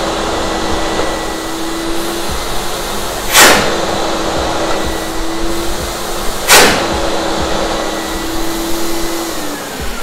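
Wieland VacPro 16 industrial vacuum's three blowers running with the suction hose sealed against a flat surface, with two sharp blasts of its air-shock filter-cleaning system about three seconds apart, each knocking dust off the filter. Near the end the blowers are switched off and wind down in a falling whine.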